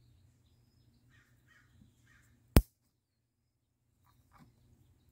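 A single sharp snap about two and a half seconds in: the lever of a WAGO lever-nut wire connector clamping shut on an inserted wire.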